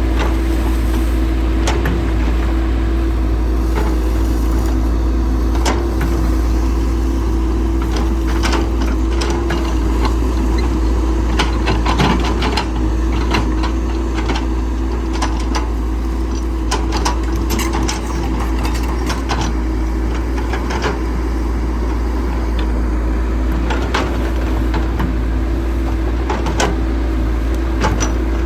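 A heavy construction machine's engine running steadily, a constant low rumble with a droning hum, while short knocks and clanks come at irregular intervals, the loudest about twelve seconds in.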